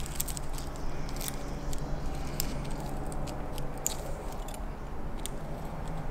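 Scattered small clicks and scrapes of hand tools and metal engine parts being handled, at irregular spacing, over a steady low hum.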